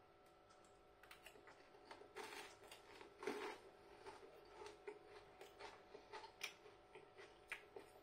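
Faint chewing of a piece of crispy Yorkshire pudding: a scatter of small, irregular crunches and mouth clicks over near silence.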